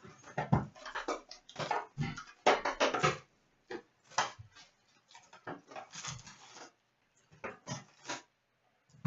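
Cardboard box and card-pack wrappers handled, rustling and tearing in short irregular bursts as a box of hockey cards is opened and emptied.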